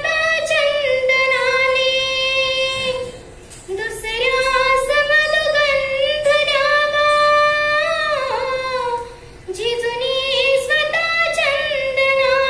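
A young girl singing a Marathi song solo, with no accompaniment to be heard. She sings three long phrases of high, held notes with ornaments and slight wavers in pitch, taking a short breath about three seconds in and another near nine seconds.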